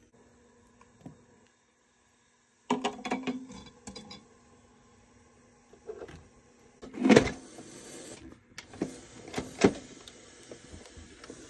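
Handling of an electric pressure cooker with glass Mason jars in it: a run of clinks and knocks a few seconds in, then two loud clunks, about seven and ten seconds in, as the cooker's lid is set on and closed, over a faint steady hum.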